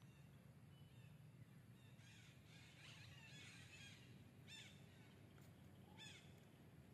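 Quiet outdoor ambience with faint, high-pitched animal calls: a cluster of short chirps about two seconds in, then two short downward-sweeping calls about a second and a half apart.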